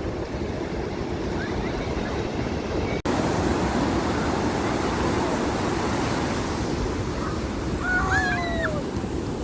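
Ocean surf washing onto a beach, a steady rushing noise, with a brief dropout about three seconds in where the recording cuts. A few short calls with sliding pitch come near the end.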